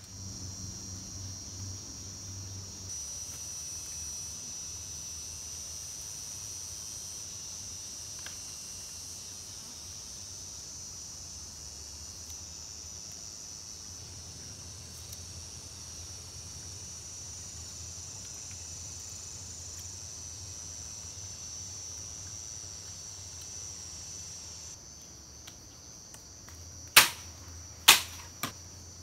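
Steady high-pitched drone of forest insects. Near the end it is broken by three sharp strikes about a second apart.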